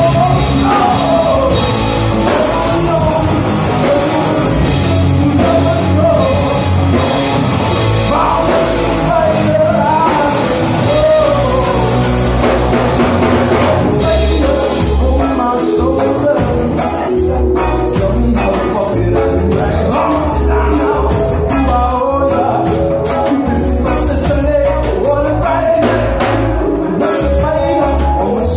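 Live rock band playing loud: electric guitars over a drum kit, with a wavering melodic lead line on top.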